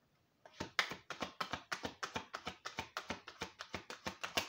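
A deck of oracle cards being shuffled by hand: a fast run of light card slaps and flicks, about eight a second, starting about half a second in.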